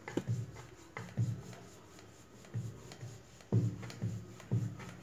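Wooden rolling pin rolling out a thin round of dough on a wooden rolling board: soft rubbing with a dull wooden knock about once a second as the pin is pushed back and forth.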